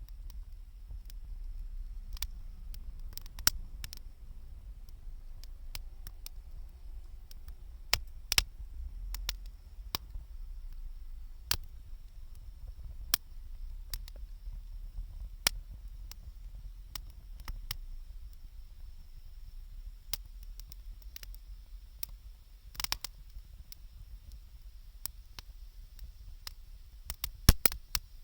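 Wood fire crackling: irregular sharp pops and snaps over a steady low rumble, with a quick cluster of pops near the end.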